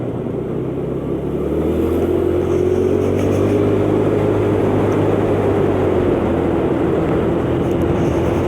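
125cc motor scooter engine running at a steady cruising pace while riding, its note rising slightly about a second in and then holding steady.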